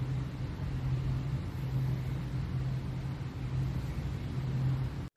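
A steady low machine hum over a low rumble, breaking off suddenly at the very end.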